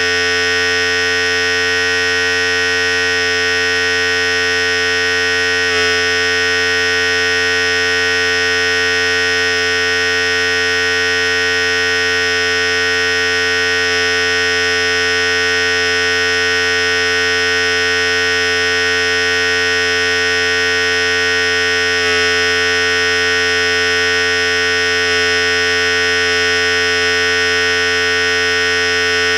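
Philips Series 5000 electric hair clipper running continuously: a steady, even buzz with a constant pitch.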